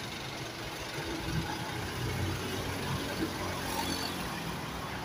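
Street traffic with a vehicle engine idling: a steady low hum that swells a little in the middle.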